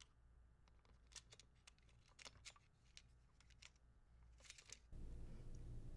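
Faint, scattered small clicks and taps of fingers handling the metal film-gate parts of a Bolex H16 Reflex 16 mm camera, over near silence.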